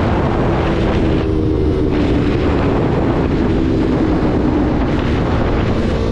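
Motorcycle engine running steadily under heavy wind noise on the microphone.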